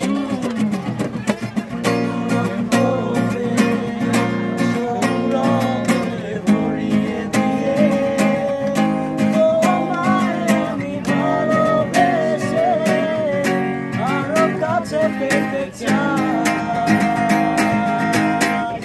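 Several acoustic guitars strummed together while a man sings a Bengali song over them, his melody rising and falling above the steady strumming.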